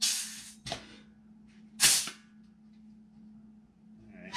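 Pneumatic hand rivet squeezer cycling: two short bursts of air hiss about two seconds apart, the second the loudest, with a sharp click between them. It is squeezing a solid rivet's shop head down in repeated squeezes because the first ones did not set it far enough.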